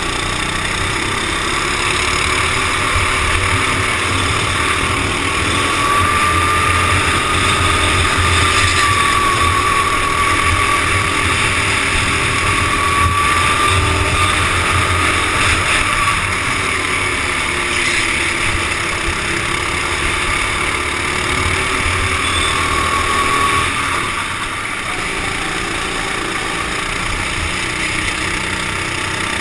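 Go-kart engine running under race load, its pitch rising and falling through the corners, with wind rushing over a helmet-mounted camera. It gets a little quieter about four-fifths of the way through.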